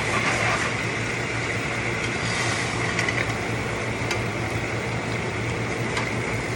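Pot of catfish, okra and vegetables cooking in oil over the heat: a steady hiss with a low hum under it. A few light clicks come through about three, four and six seconds in.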